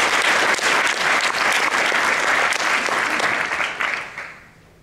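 Audience applauding: dense clapping from many hands that fades out near the end.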